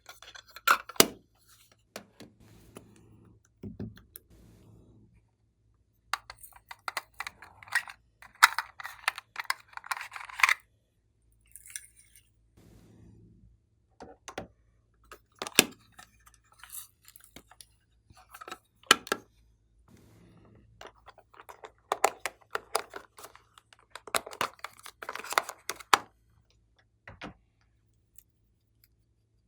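Glossy slime being pressed and worked by hand: irregular sticky clicks, pops and crackles, coming in clusters with short pauses between them.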